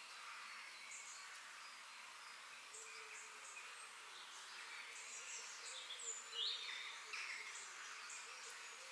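Several birds chirping and calling in short notes and quick whistled glides, the loudest about six seconds in, over a faint steady hiss.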